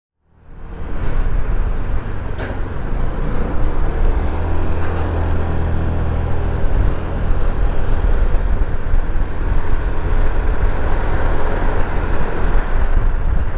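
Zontes 350E maxi-scooter on the move in traffic: its single-cylinder engine runs steadily under a wash of wind and road noise. The sound fades in over the first second.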